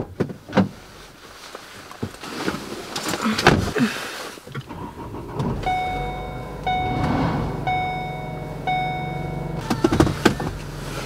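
Someone getting into a car: sharp knocks and thumps of the door and seat. About four and a half seconds in, a low steady hum of the engine running sets in. Over it a dashboard warning chime sounds four times, about a second apart, with more knocks near the end.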